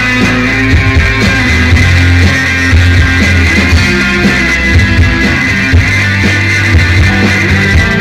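Live rock band playing loud, continuous music on electric guitars, bass guitar and drums.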